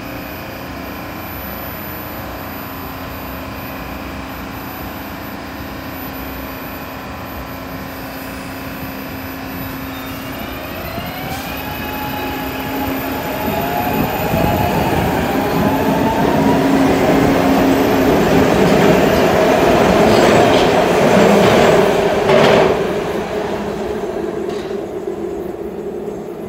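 SEPTA Market-Frankford Line M-4 train standing at the platform with a steady electric hum, then pulling out. Its motors set up a rising whine about ten seconds in, which grows into a loud rumble of steel wheels on the elevated track with a couple of sharp clacks, before easing off near the end.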